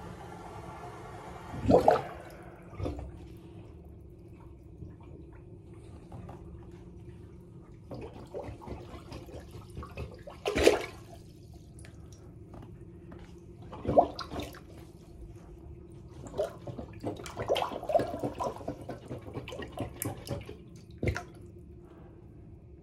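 Rubber plunger worked in the bowl of an American Standard Cadet 1.6 toilet: the swirl of a flush dies away at the start, then sloshing, sucking splashes from single plunges about 2, 11 and 14 seconds in and a run of quicker strokes near the end.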